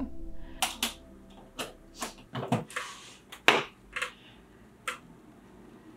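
Scattered light clicks and taps of small objects being handled, about seven in all, with a brief hiss near the middle.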